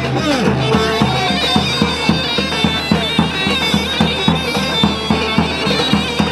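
Folk dance music: a loud, reedy wind instrument playing the melody over a regular drum beat of about three strokes a second.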